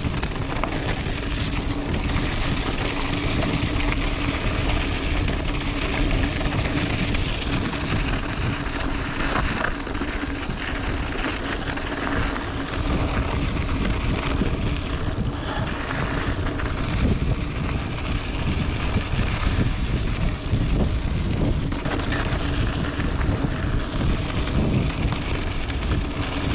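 Wind buffeting the camera microphone and mountain-bike tyres rumbling over a dry dirt trail while riding, a steady noise throughout.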